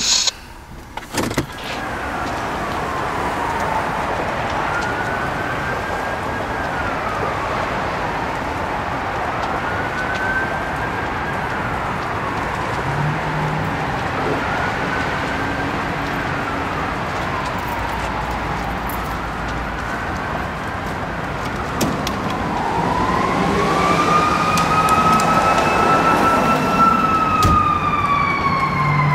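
Emergency vehicle siren in a rising-and-falling wail, about one cycle every three and a half seconds, over a steady rushing noise from the nearby burning pickup. About 22 s in, a second siren starts, climbing slowly, holding high and then slowly falling as the fire apparatus arrives.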